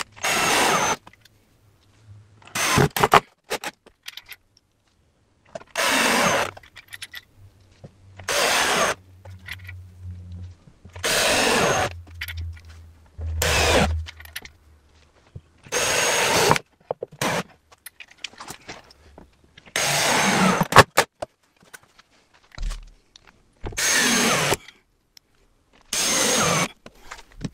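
Cordless drill driving screws into timber fence palings, in about ten short bursts of under a second each, a few seconds apart.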